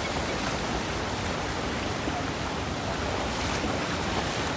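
Surf washing over shallow water in a steady rush of noise, with wind rumbling on the microphone.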